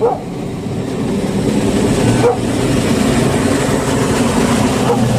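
Fendt Vario 930 tractor pulling a loaded Kaweco slurry tanker along a road, its engine running steadily and its tyres rolling as it comes up close. A few short yelps cut through, like a dog barking, at the start, about two seconds in and near the end.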